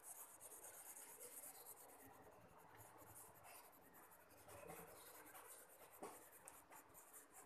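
Faint scratching of a colored pencil on paper, many quick strokes of shading.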